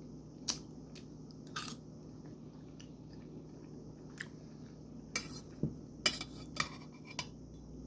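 Cutlery clinking and tapping against a dish while picking up pieces of boiled vegetables, in scattered short clicks that come more often in the second half.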